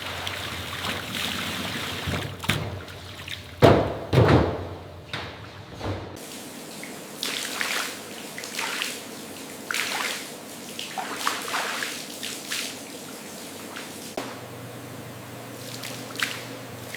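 Liquid trickling and splashing in irregular bursts, with the loudest splashes about four seconds in; a low background hum changes about six seconds in.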